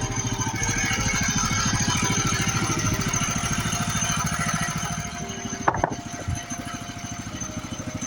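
Portable bandsaw sawmill running on its small gas engine, with a steady rapid engine beat and a rushing hiss that eases off after about five seconds. One sharp metallic clank rings out about five and a half seconds in.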